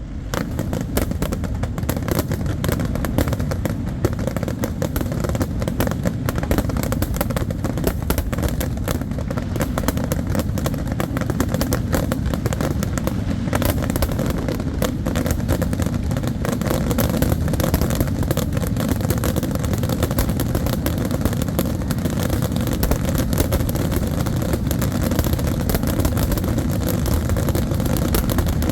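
Fireworks going off in a dense, continuous barrage of booming bursts and crackle, with no break.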